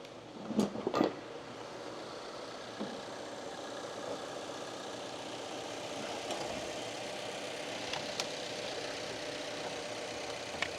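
Subaru Impreza's flat-four engine idling steadily under the open hood, with two short knocks of parts being handled about half a second and a second in.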